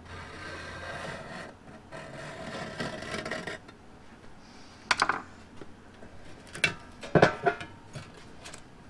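Scratch awl scraping along the edge of a new sheet-steel patch panel, scribing the cut line: two long rasping strokes in the first few seconds. Then a few sharp knocks and clatters as the awl is put down and the old rusty panel piece is lifted off.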